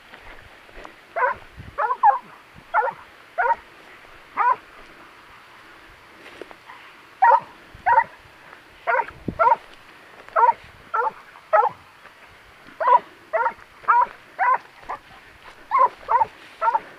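Hunting dog on the track of a wild boar, baying in short, high, separate barks. A few come in the first seconds, then a brief pause, then a steadier run of barks, sometimes two or three in quick succession, from about seven seconds on.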